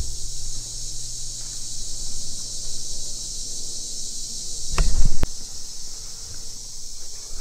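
Steady high-pitched insect chorus of crickets and katydids in the woods. About five seconds in, a couple of loud low thumps and sharp knocks stand out.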